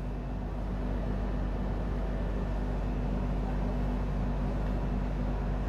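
Steady room noise: a constant low electrical hum with an even hiss behind it.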